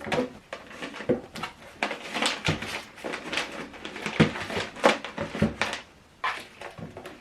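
Irregular clicks, taps and knocks of a plastic soundbar rear speaker and its speaker cable being handled, about a dozen sharp sounds at uneven intervals.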